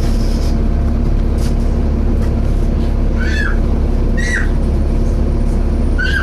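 Volvo B7TL bus's diesel engine and cooling fan running in a steady drone with a constant hum, heard from inside the bus. Three short high squeaks, each bending up and back down, come about three, four and six seconds in.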